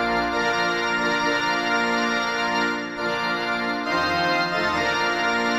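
Background music: sustained organ-like keyboard chords.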